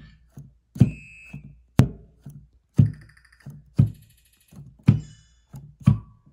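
Digital piano keys pressed one at a time, about once a second; each press gives a short, dull low note, and several come with odd high, beeping tones, the strange sound the owner says the piano is making.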